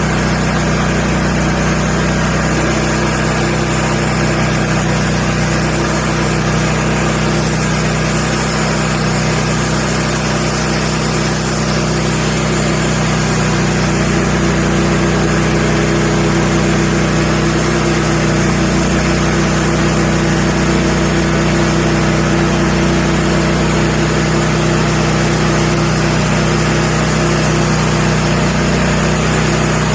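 Wood-Mizer LX150 band sawmill running steadily, its engine driving the band blade through a large magnolia log; it gets slightly louder about halfway.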